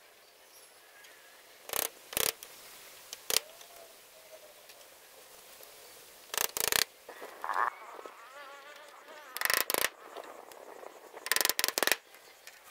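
Hammer blows nailing bamboo slats onto a wooden frame, coming in short groups of quick sharp strikes. Faint insect sounds continue between the blows.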